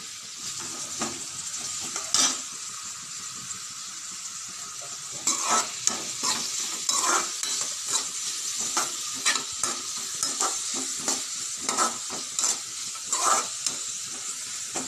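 Shredded vegetables sizzling as they are stir-fried in a steel kadai, with a slotted steel spatula scraping and knocking against the pan as it tosses them. The strikes are few at first and come several a second from about five seconds in.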